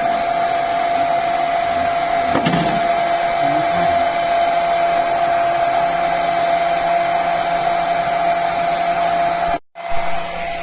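Hand-held hair dryer running steadily at full blast with a constant whine, blowing hot air onto the built-up ice to defrost the freezer. A single knock comes about two seconds in, and the sound cuts out for a split second near the end before running on.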